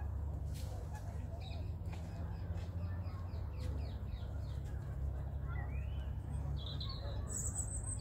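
Small songbirds singing in the trees around a pond: a quick run of short repeated high notes early on, then higher, brighter calls near the end, over a steady low background rumble.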